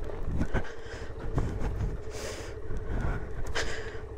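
Suzuki Van Van 125's single-cylinder engine running at low revs as the bike rolls down a steep rocky trail, with irregular knocks and rattles from the wheels and suspension going over loose rocks.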